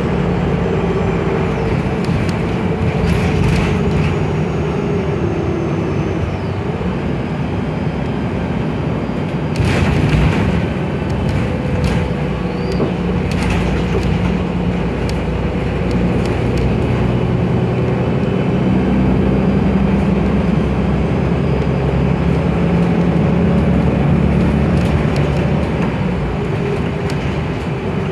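Inside a moving city transit bus: steady engine drone and road noise, the engine note shifting as the bus changes speed, with occasional rattles and knocks from the body.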